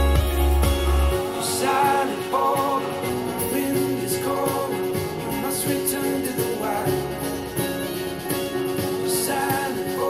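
Recorded music playing through a Marshall Stanmore II Bluetooth speaker and, after a switch, a Klipsch The Three II, picked up by room microphones. Heavy deep bass drops away about a second in.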